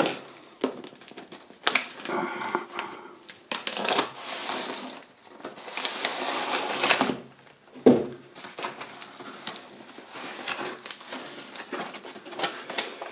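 A knife slicing through the packing tape on a cardboard box in several long rasping strokes, with clicks and scrapes from the cardboard. Near the end come the quieter crinkles of the flaps being opened onto packing paper.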